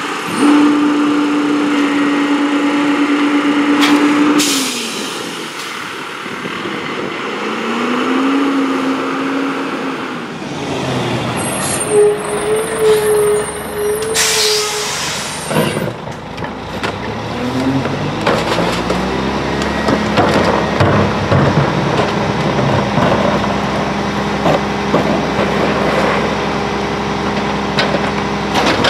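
Rear-load garbage trucks at work: a diesel engine held at a steady raised speed to drive the hydraulic packer, then dropping and climbing again. About halfway there is a sharp air-brake hiss, then a second truck's engine revs up with knocks and clatter as a cart is tipped into the hopper.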